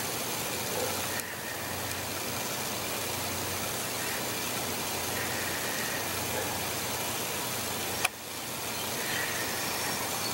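Steady low mechanical hum under an even hiss, like an engine or machine running, with one sharp click about eight seconds in.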